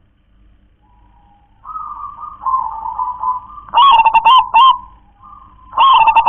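Zebra dove (perkutut) singing its cooing song: soft low cooing first, then a loud rhythmic phrase of ringing coos about four seconds in, and a second loud phrase starting near the end.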